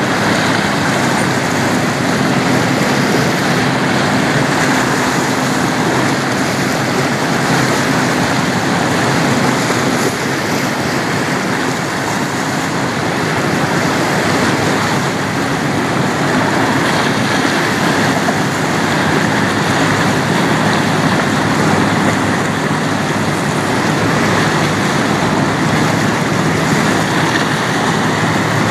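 Steady rushing noise of choppy river water and wind, with a faint low hum in roughly the first third.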